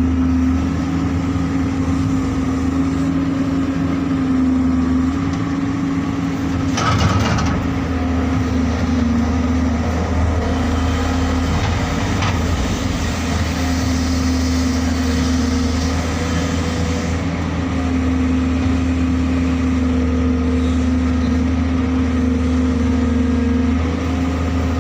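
JCB excavator's diesel engine running steadily at working revs, with a loud knock about seven seconds in and a shorter one near twelve seconds. A higher whine rises over the engine from about ten seconds and fades near seventeen.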